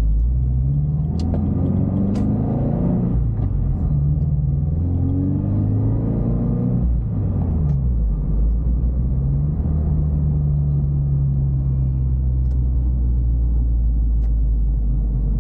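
Toyota GT86's flat-four engine pulling through the gears: its pitch rises, drops at upshifts about 3 and 7 seconds in, then holds steady at a low cruise.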